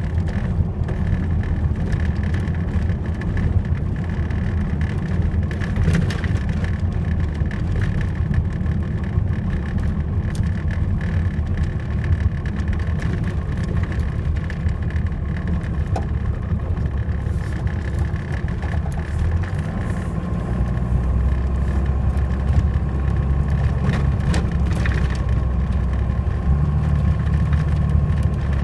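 1995 Cummins 12-valve 5.9-litre inline-six turbo-diesel running steadily, heard from inside the truck's cab as a deep continuous drone that grows heavier about twenty seconds in.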